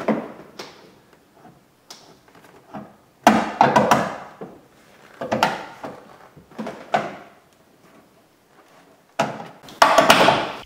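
Plastic tail light assembly knocking and clunking against the car body as it is pushed in and worked onto its locating pins and mounting studs. The knocks come in irregular clusters, loudest about three to four seconds in and again near the end.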